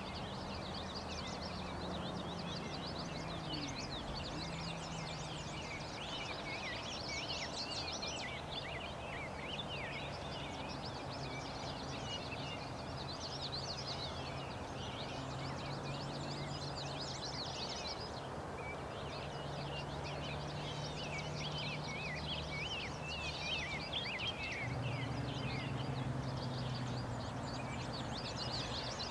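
Many songbirds chirping and singing at once over a steady background hiss, with a low hum underneath that shifts pitch now and then.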